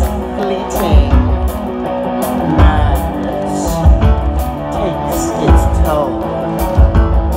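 Loud rock music with guitar, driven by heavy low thumps about every second and a half.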